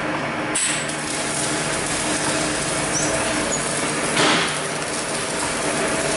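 Steady machinery hum and noise of a factory floor, with a brief clatter about four seconds in.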